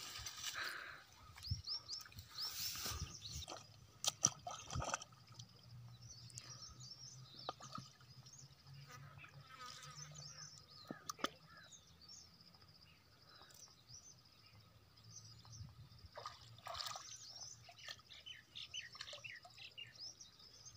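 Gill net being hauled by hand out of shallow water: faint splashes and drips, with a few sharp clicks in the first five seconds. Birds chirp in the background, more of them near the end.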